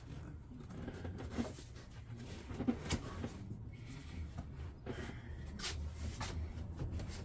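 Handling noise from a golf cart seat as a new upholstery cover is pulled and shifted over the seat pan: scattered light knocks, clicks and rustling, a few sharper ones about three seconds in. A low steady hum runs underneath.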